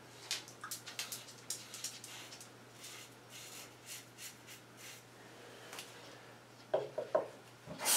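Double-edge safety razor (a 1985 Gillette Black Beauty Super Adjustable set on 9, with a Treet blade) scraping through two-day stubble in a quick series of short, faint rasping strokes. Near the end come a couple of louder knocks.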